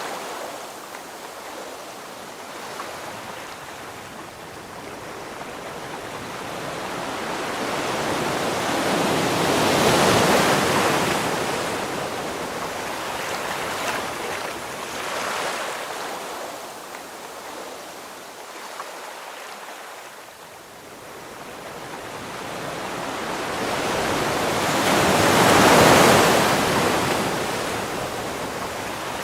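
Ocean waves breaking on a shore: a continuous rush of surf that swells to a loud crash about a third of the way in and again near the end, with a smaller wave in between.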